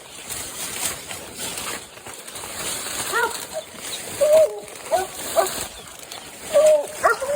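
Coonhound barking at a tree: short, repeated barks starting about three seconds in and coming in quick groups. It is the dog treeing its quarry.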